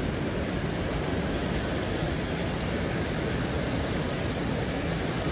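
Steady, even background din of a busy exhibition hall, while a model diesel locomotive hauling coaches runs along the layout's track.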